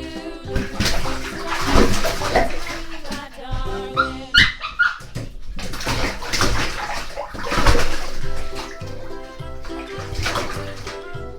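A toy poodle splashing in bath water, in surges, over background music, with a few short high squeaks about four seconds in.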